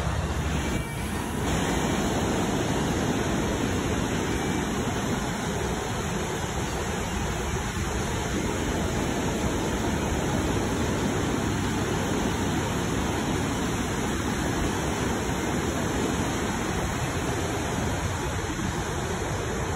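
Ocean surf washing onto the beach: a steady rushing of breaking waves.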